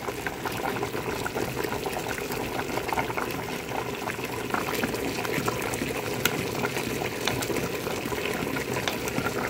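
Beans and vegetables boiling in an open aluminium pressure-cooker pot: a steady bubbling hiss with many small crackles and pops.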